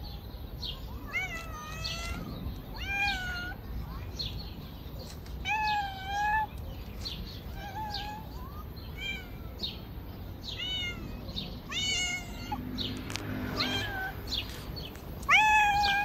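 Cats meowing again and again, about eight meows, each rising then falling in pitch, with the loudest one near the end.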